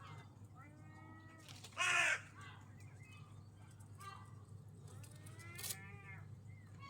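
Seagulls calling: a run of several pitched calls, the loudest a short one about two seconds in and another strong one a little before the end.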